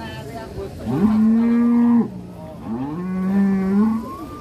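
Cattle mooing: two long, level calls, the first about a second in and the second shortly after it ends, lasting until near the end.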